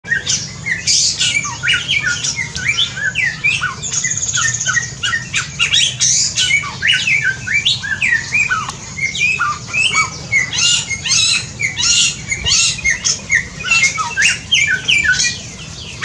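Many birds of a mixed aviary calling at once: a dense, overlapping chorus of short chirps and calls with no break.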